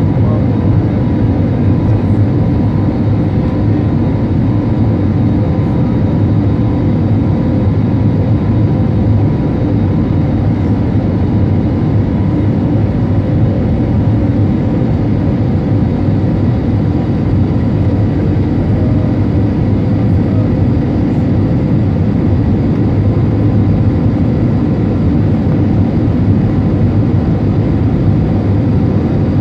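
Steady cabin noise of a jet airliner in flight, heard from a window seat: a constant low rumble of engines and airflow with a faint steady hum on top.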